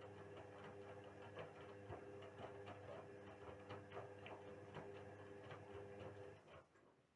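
Indesit WISL 62 front-loading washing machine in its wash cycle: the drum motor hums steadily with a light, irregular ticking on top. The hum dies away about six and a half seconds in as the drum stops turning.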